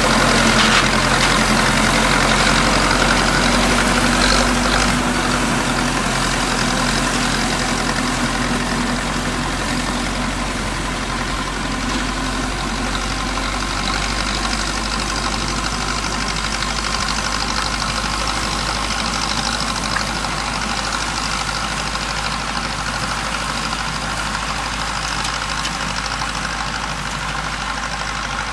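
Zetor 7245 tractor's four-cylinder diesel running steadily under load while its PTO-driven ZTR 165 drum mower spins and cuts grass, a dense even whirr over the engine's hum. It is a little louder for the first five seconds, then settles.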